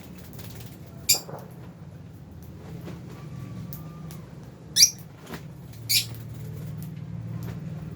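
Lovebirds in an aviary giving three short, sharp, high-pitched chirps, about a second in, near the middle (the loudest) and a second later, over a steady low hum.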